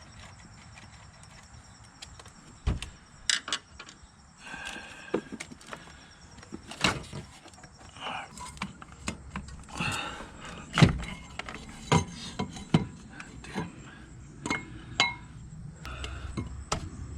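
Irregular clicks, knocks and light clinks of car parts and tools being handled and pried loose, while the Evo X is taken apart for a short shifter install. The loudest knocks come about 3, 7, 11 and 12 seconds in.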